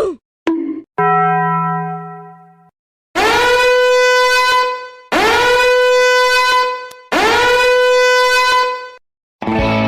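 A string of short meme sound effects. First a brief falling-pitch sound and a short blip, then a fading tone over a low hum, then a horn-like note blown three times in a row, each blast about two seconds long and held at one pitch.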